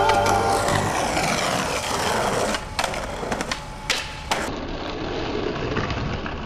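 Skateboard wheels rolling on rough concrete, with several sharp clacks of the wooden deck and trucks against concrete in the middle as a trick is popped, slid along a concrete table and landed, then rolling again on the pavement. The last sung note of a song fades out in the first second.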